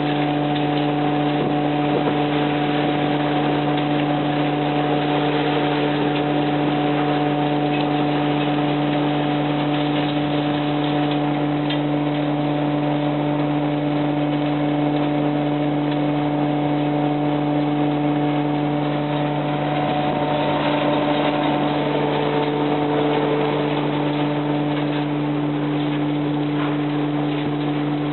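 Mobile trommel screener running: a steady machine hum with a continuous noisy rattle over it, unchanging throughout.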